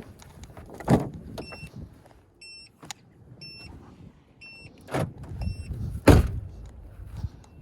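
A car's warning chime beeps about once a second, five short high beeps. Several thumps come in between; the loudest is about six seconds in.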